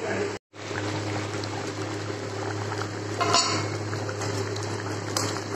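Chicken curry simmering and bubbling in a pan, over a steady low hum. The sound cuts out completely for a moment about half a second in.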